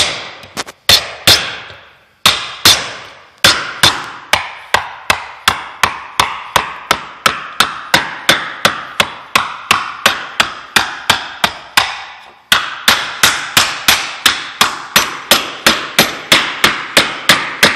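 Hammer striking a hard oak board held against an aluminum wing-rib blank clamped between wooden forms, knocking the flange over gradually rather than all at once. Sharp, steady knocks about two to three a second, with a couple of brief pauses, then a faster run near the end.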